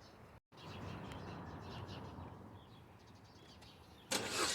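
Faint background with light bird chirps, then about four seconds in an engine is started and runs loudly. The owner says this engine knocks for a moment at the beginning of every start.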